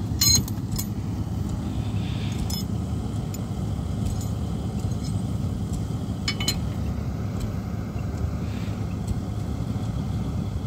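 Metal tools clinking on a car wheel as a flat tyre is changed by hand: a few sharp, ringing metallic clinks, the loudest just after the start, over a steady low rumble.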